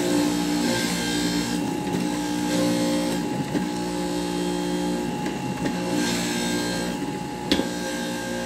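Jack LaLanne's Power Juicer running: the centrifugal juicer's electric motor hums steadily, with one sharp click about seven and a half seconds in.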